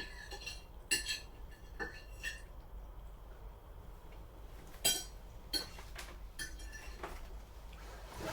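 Dishes and cutlery clinking: about half a dozen light, separate clinks that ring briefly, the clearest a little under a second in and at about five seconds.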